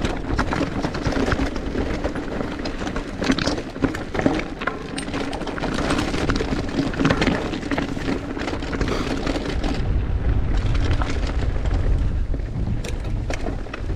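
Mountain bike descending a rough trail: tyres on dirt and rock with constant sharp clatters and rattles over bumps, over a rushing noise. The low wind rumble on the microphone grows heavier about ten seconds in.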